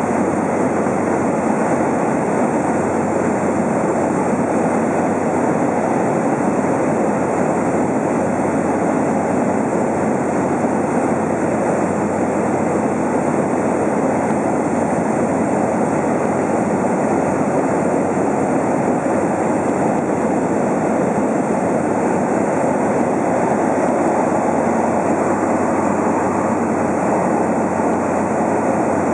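A Cessna aircraft's engine and propeller running steadily in flight, heard from inside the cabin as an even, unchanging noise.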